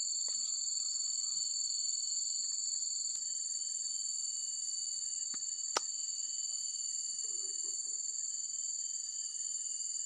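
Steady, high-pitched insect chorus of crickets or cicadas, two constant shrill tones droning without a break, with a single sharp click a little past the middle.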